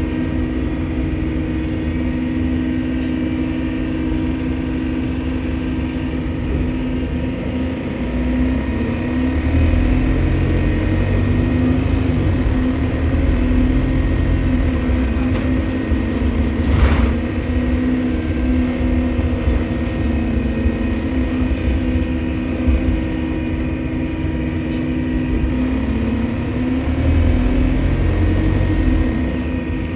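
Diesel engine of a London double-decker bus running under way, heard on board, with a thin high whistle that rises and falls twice as the engine pulls harder: the noise of a leaking turbocharger. A single sharp click comes about halfway through.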